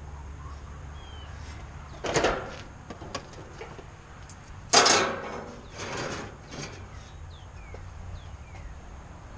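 Two loud knocks about two and a half seconds apart, followed by a couple of fainter knocks.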